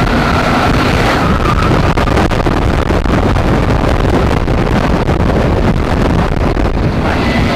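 Wind rushing over the ride camera's microphone and the rumble of an Intamin launched inverted coaster train running at speed on its steel track through an inversion. A faint steady high tone fades out about a second and a half in.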